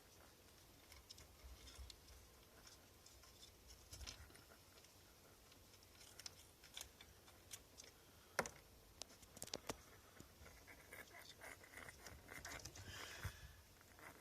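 Near silence: room tone with faint scattered clicks and light taps, the sharpest single click about eight seconds in.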